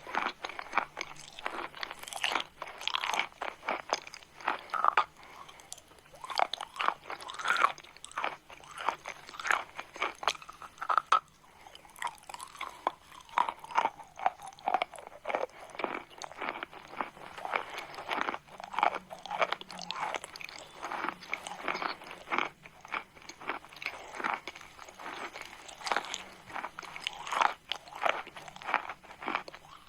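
Chalk being bitten and chewed close to the microphone: rapid, irregular dry crunches and crumbling that keep going, with a brief lull about eleven seconds in.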